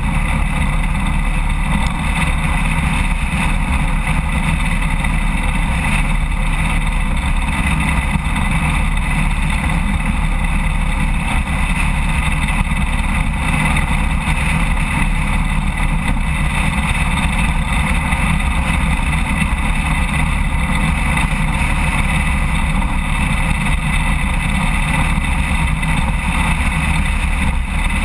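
Road King motorcycle cruising steadily at highway speed, with the engine running under heavy wind and tyre noise.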